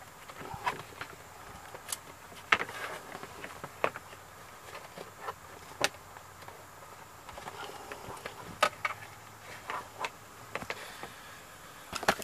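Plastic under-dash trim panel of a 2013 Chrysler Town & Country being handled and pressed into place. Scattered sharp clicks and knocks come a second or two apart as its clips snap in, over light rustling.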